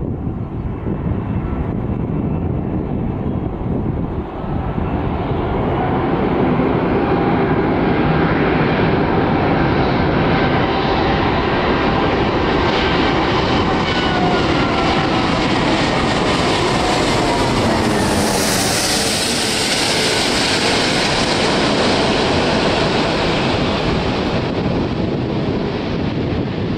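Airbus A380 jet airliner on landing approach passing low overhead, its four turbofan engines making a loud, steady jet rumble. Whining engine tones slide down in pitch as it nears, the hiss is sharpest about two-thirds of the way through as it goes over, then the sound dulls as it moves away.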